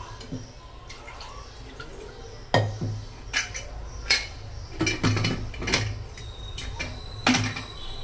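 Aluminium pressure cooker clanking: about half a dozen sharp metal knocks as its lid is handled and fitted on, with a faint high ringing near the end.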